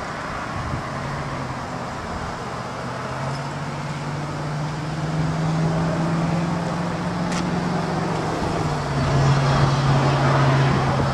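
A motor vehicle's engine running with a steady low drone over traffic noise. The drone rises in pitch a few seconds in, drops back near the end, and grows louder over the last few seconds.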